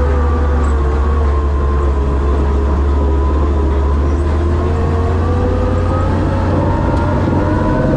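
Monster truck's engine running under way, heard from inside the cab: a heavy low rumble, its pitch sagging over the first few seconds and climbing again in the second half as the engine slows and then picks up.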